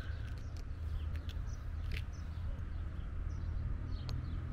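Open-air ambience: a steady low rumble with faint, scattered bird chirps and a couple of light clicks.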